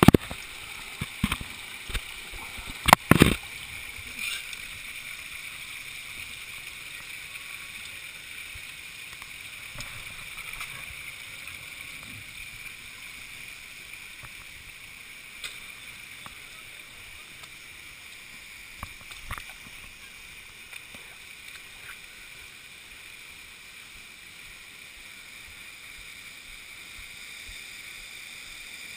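Water running over a wet rock face, a steady rushing hiss, with several sharp knocks in the first few seconds, the loudest about three seconds in, and a few fainter ones near the middle.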